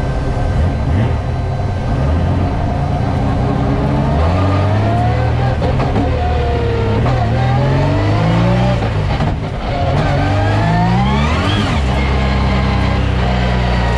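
Nissan VR38DETT twin-turbo 3.8-litre V6 in a drift car, heard from inside the stripped cabin as the car gets under way. After a steadier rumble the revs climb and drop again and again through the gears. Near the end one steep rise peaks and then falls away sharply.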